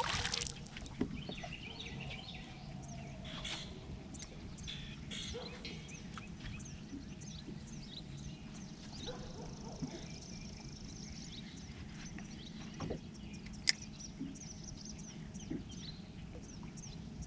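Birds calling and chirping in the background, short scattered calls throughout, with a single sharp knock about three-quarters of the way through.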